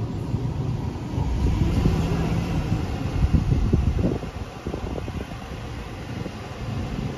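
Low, steady rumble of a vehicle driving, heard from inside the cab. It grows louder about a second in, and a few short knocks come through near the middle.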